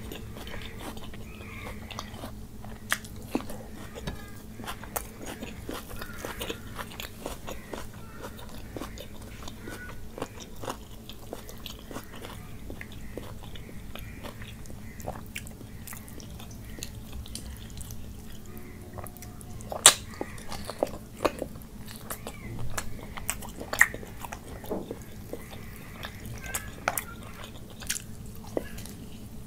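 Close-miked eating of meat curry and rice by hand: chewing and biting, with many short wet mouth clicks and smacks over a steady low hum. The loudest, sharpest click comes about two-thirds of the way through, followed by a run of clicks.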